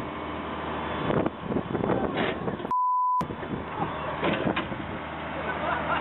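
A truck engine running steadily, with a few sudden knocks. A censor bleep about half a second long cuts in about three seconds in.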